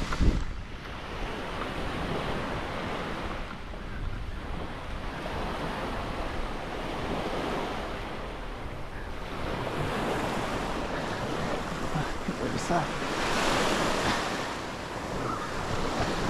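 Small waves washing up a sandy beach, with wind buffeting the microphone. The wash swells louder a little after the middle.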